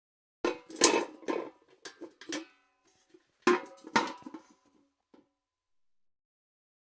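Metal bucket clanking: two quick runs of knocks and rattles with a ringing metallic tone, the first about half a second in and the second about three and a half seconds in, then one light knock.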